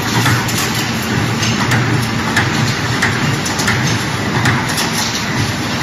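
Rebar straightening and bending machine running: a steady hum under a dense haze of noise, with frequent irregular sharp clicks.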